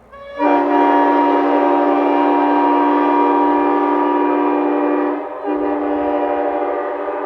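Nathan Airchime K5LA five-chime train horn sounding its chord. The horn comes in about a third of a second in and holds steady, breaks off briefly about five seconds in, then sounds again a little quieter.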